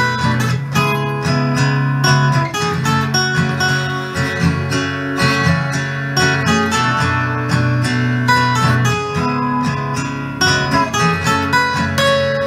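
Acoustic guitar strumming chords with no singing: an instrumental break in a song.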